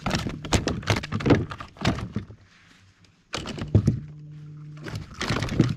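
Irregular thunks and knocks on a fishing kayak as a freshly hooked fish is handled aboard, in a dense run for the first two seconds and another short cluster after a brief lull. A steady low hum comes in about four seconds in.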